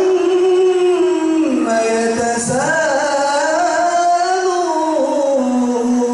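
A boy's voice chanting a Quran recitation into a microphone, drawing each phrase out into long held notes that slide and turn up and down in a melodic line.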